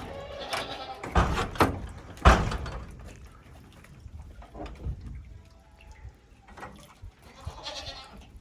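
Goats bleating, once at the start and again near the end, with a few sharp knocks in between, the loudest about two seconds in.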